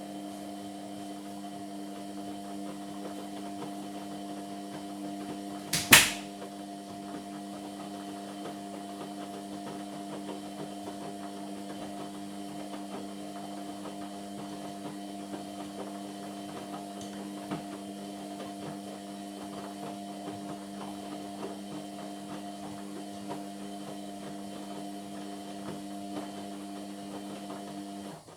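Indesit MyTime washing machine running mid-cycle on a cotton wash: a steady mechanical hum with a fixed pitch, broken once by a sharp knock about six seconds in, and cutting off suddenly at the end.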